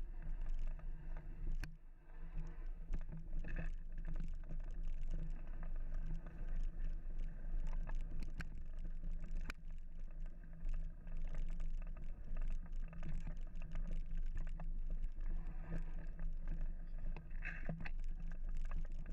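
Mountain bike riding fast down a dirt trail: a steady low rumble of wind and tyres, with frequent rattling clicks as the bike jolts over bumps.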